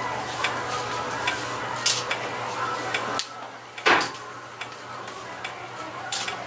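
Hair-straightening flat iron being clamped on sections of hair and drawn through them: light clicks and clacks of its plates and handles with a rustling of hair, over a steady low hum. A sharp click about four seconds in is the loudest.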